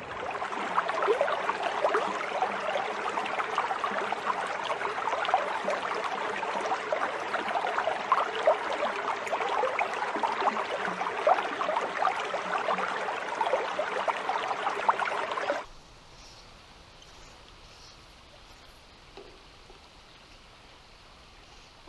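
River water babbling and rushing over a shallow run, a steady crackling wash that cuts off abruptly about fifteen and a half seconds in. A much quieter background with a few faint high chirps follows.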